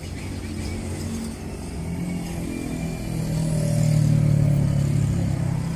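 A road vehicle's engine passing close by on the street. It grows louder to a peak about four seconds in and fades near the end.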